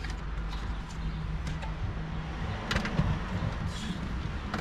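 Clicks and knocks of someone handling trim parts and moving about inside a car cabin, over a steady low rumble. The loudest knock comes about three seconds in.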